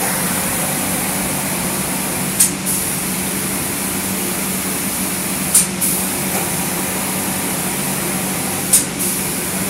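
Automatic spray-painting machine's spray gun hissing steadily as it sprays paint onto a wooden door, over a steady low hum from the machine. Three short, louder bursts of hiss come about three seconds apart.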